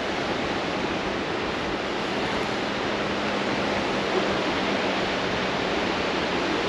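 Steady rush of ocean surf breaking on a rocky shore, an even roar with no distinct breaks.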